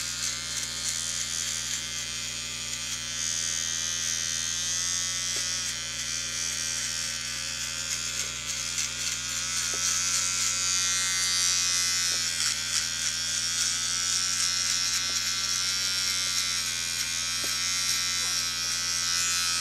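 Small cordless electric clippers buzzing steadily as they trim the fur around the base of a puppy's tail.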